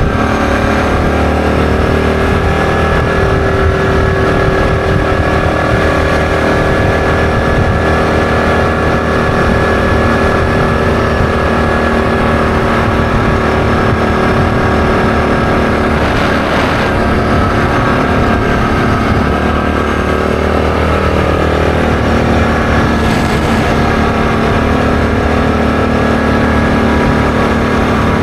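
ATV engine running steadily at cruising speed, a constant loud drone. Two brief swells of noise rise over it, one about halfway through and one later.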